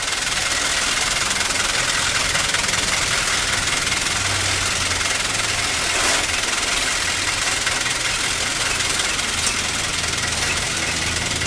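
Diesel engine of heavy road-construction equipment running steadily under a dense mechanical clatter, with one sharp knock about six seconds in.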